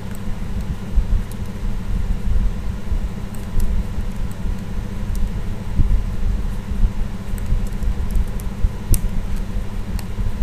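Steady low rumble of background noise through the recording, with a few faint, sharp clicks scattered through it.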